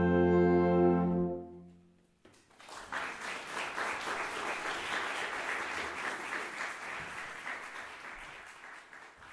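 Concert band of brass and woodwinds holding its final chord, cut off about a second in, then the audience applauding, the clapping slowly tapering off near the end.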